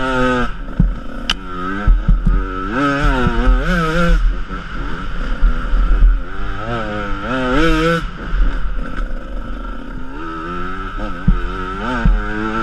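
Enduro motorcycle engine revving up and down in repeated bursts as the rider opens and shuts the throttle on a dirt trail, heard from a helmet-mounted camera with a heavy low rumble underneath. A few sharp knocks come from the bumpy ground.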